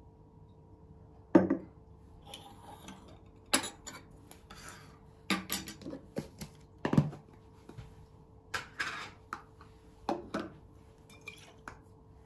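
A glass tumbler and a bottle being handled and set down on a wooden tabletop: about seven separate knocks and clinks, the loudest about a second and a half in and again about seven seconds in, with faint rustling between them.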